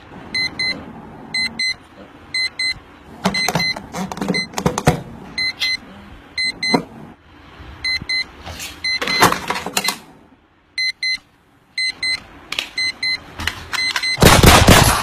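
Digital alarm clock beeping: a high, piercing electronic beep that sounds in quick clusters about once a second and keeps repeating. Several louder noisy bursts fall between the beeps, the loudest one near the end.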